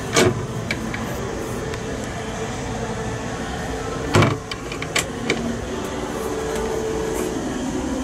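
Wooden cabinet door in a boat cabin being handled and opened: a few clicks and knocks, the loudest about four seconds in, over a steady background hum.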